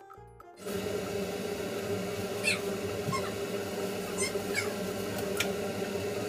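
Buttered baguette slices sizzling in a frying pan over a gas stove: a steady hiss with a low hum beneath it, starting about half a second in. Several short high squeaks that fall in pitch break through it.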